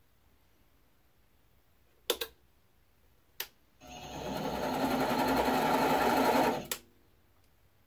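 Mini lathe motor starting after two sharp clicks. It runs up to speed over about a second, runs steadily for a couple of seconds, then cuts off sharply with a click. This is a short single-point thread-cutting pass on a steel stud.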